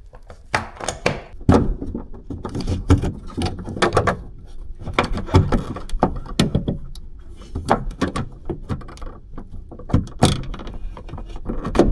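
Irregular clunks, knocks and rattles of a Fiat 500 exterior door handle being worked and wiggled back into its opening in the door panel, searching for the right position to slide in.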